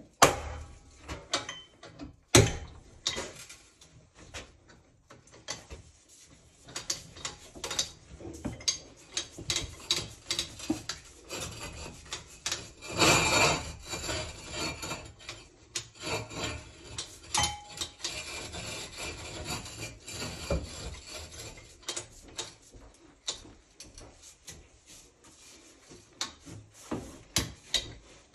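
Ridgid 246 ratcheting soil pipe cutter working on a cast-iron vent stack: irregular clicks and clanks of the ratchet handle and cutter chain against the pipe. There is a sharp knock a couple of seconds in, and a louder burst of clanking about halfway through as the chain is handled and moved up the pipe.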